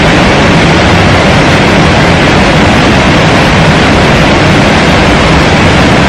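Loud, steady rush of fast-flowing river water in a gorge: an even hiss with a strong low rumble.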